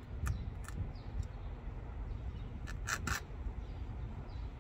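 Old upholstery fabric being pulled by hand from an antique chair's wooden seat rail: a few short clicks and light scraping, two clicks near the start and a quick cluster about three seconds in, over a low steady rumble.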